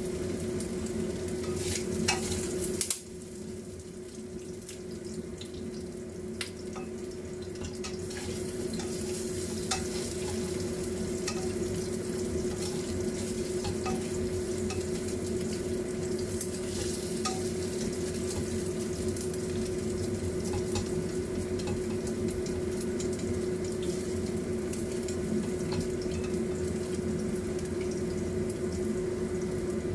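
Spring rolls (lumpia shanghai) deep-frying in a pot of hot oil, bubbling and crackling steadily, with a spatula scraping and stirring diced meat in a wok. A steady hum runs underneath.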